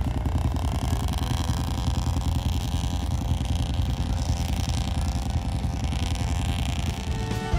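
Motorcycle engine running close by: a fast, even low pulsing, its pitch rising a little in the first second and then holding steady.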